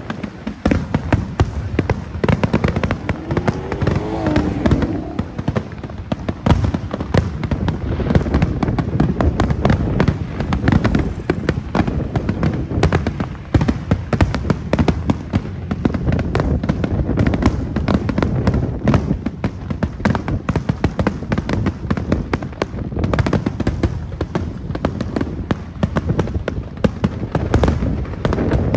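Aerial fireworks show: a continuous, rapid barrage of bangs and crackles from shells bursting overhead, with a short whistling glide about four seconds in.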